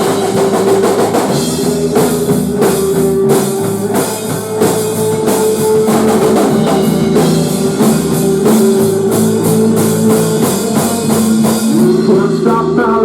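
Instrumental passage of a grunge-tinged rock song: a full drum kit playing with electric guitar and bass holding long sustained notes, with no vocals.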